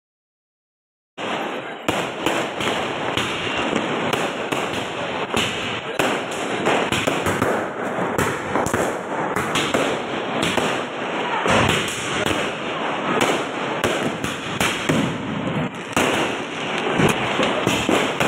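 After about a second of silence, firecrackers crackle and pop without a break, many small bangs overlapping.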